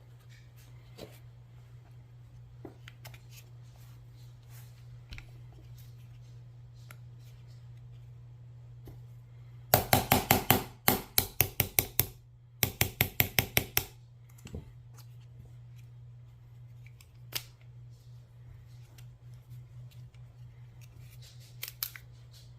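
Pistol parts being handled during disassembly: scattered light taps and clicks, then about ten seconds in two loud runs of rapid clicking, roughly seven or eight clicks a second, each lasting a second or two. A steady low electrical hum runs underneath.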